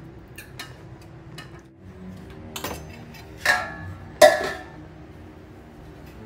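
Steel kitchen dishes and utensils clinking and clattering, with two loud ringing metallic clanks less than a second apart past the middle, over soft background music.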